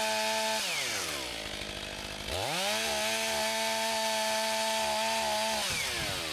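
Two-stroke chainsaw at full throttle, dropping to idle about half a second in, revving back up to full speed about two seconds later, and falling back to idle near the end.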